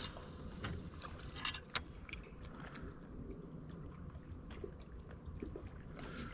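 Faint ambience aboard a fishing boat: low steady noise with scattered small clicks and taps, and one sharp click about two seconds in.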